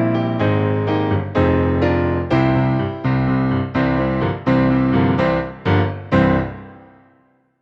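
Piano playing a slow series of full, struck chords, roughly one a second; the final chord comes about six seconds in and rings out, fading away to silence.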